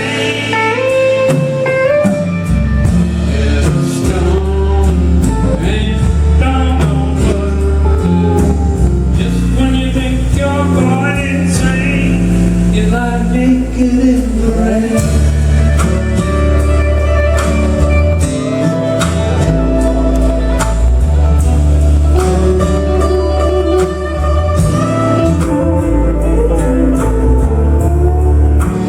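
Live band music: guitars over a full, steady bass, with singing.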